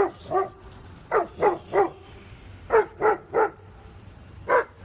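German Shepherd barking at an inflatable Halloween ghost decoration: about nine sharp barks, mostly in quick runs of three with short pauses between the runs.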